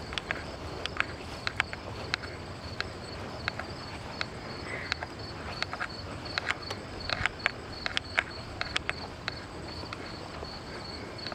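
Irregular footsteps and sharp clicks on grass, over crickets chirping steadily in a high pulsing trill.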